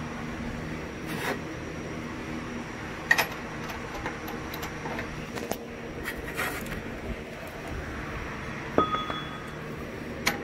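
Scattered metallic clicks and clinks of a socket and ratchet being handled, about six sharp knocks in all, one of them about nine seconds in ringing briefly. A steady low hum runs underneath.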